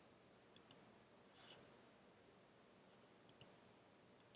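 Faint computer mouse clicks: three quick pairs of clicks over near-silent room tone.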